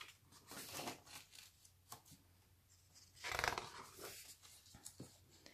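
Page of a hardcover picture book being turned by hand: faint paper rustles and swishes, the loudest a little past the middle.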